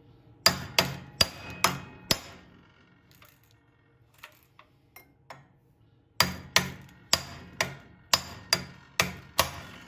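Hammer blows on a screwdriver set against the lugs of a Briggs & Stratton starter clutch, driving the clutch tight onto the crankshaft. There are five sharp metallic strikes with a short ring in the first two seconds, a few faint ticks, then about eight more strikes in quick succession.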